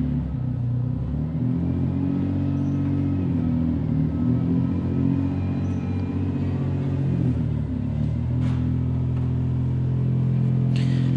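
A car engine running, its pitch shifting as the revs change, then settling to a steady note for the last few seconds.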